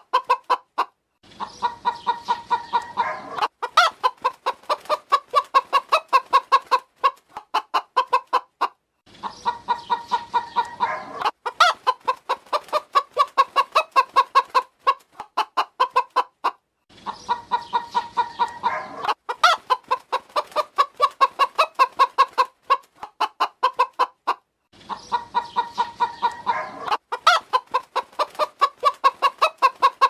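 Hens clucking: a quick run of short clucks, several a second. The stretch lasts about eight seconds and repeats over and over, with a brief pause between repeats.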